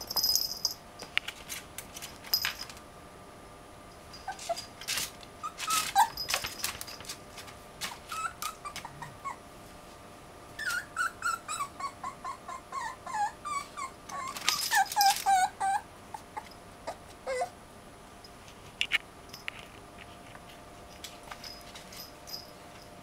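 Puppy whimpering in strings of short, high-pitched whines and yelps that come in bursts; about halfway through, a run of whines falls in pitch one after another, and the loudest burst follows shortly after.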